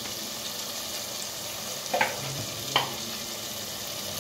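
Onion-tomato masala sizzling in oil in a steel pot, a steady frying hiss, with two sharp clicks about two and nearly three seconds in. The masala is fully fried, with the oil risen to the surface.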